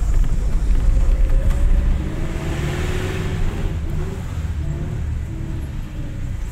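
Engine and road noise of a moving vehicle heard from inside the cabin: a steady low rumble.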